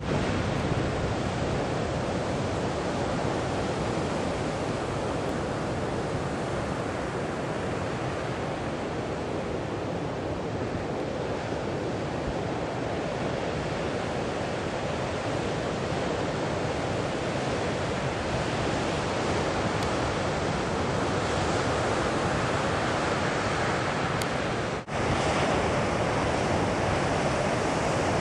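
Pacific Ocean surf breaking in successive waves: a steady wash of crashing water, with a momentary dropout near the end.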